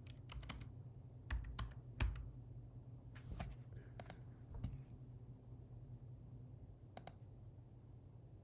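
Computer keyboard typing in two short runs of keystrokes in the first half, with a single click later. A steady low hum sits underneath.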